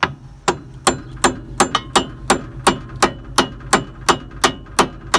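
Hammer tapping a steel roll pin back into the SafeCut cutter hub of a Krone mower conditioner: a steady run of metallic strikes, about three a second, each with a short ring.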